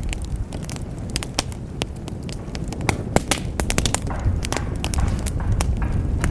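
Wood fire in a fireplace crackling, with frequent sharp snaps and pops over a steady low rumble of burning.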